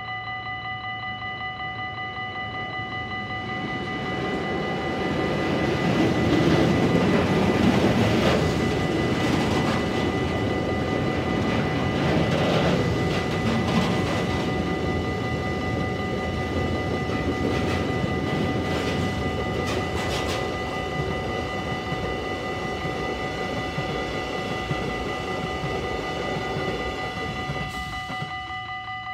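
A Lineas Traxx electric locomotive passes hauling a freight train, loudest as the locomotive goes by early on, then the wagons roll past with wheels clicking over rail joints, fading near the end. A steady high ringing tone sounds throughout.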